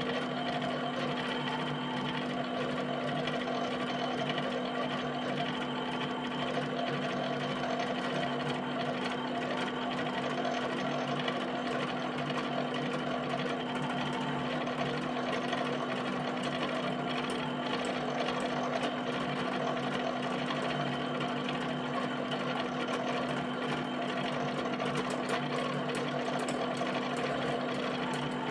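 HP 7585B pen plotter drawing a field of dots: the pen tapping down and lifting in quick succession as the carriage and paper drive shift it between dots, a fast, even mechanical chatter over a constant hum.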